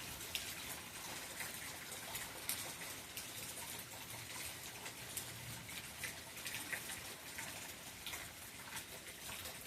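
Steady rain falling during a thunderstorm, an even hiss with scattered drops ticking close by.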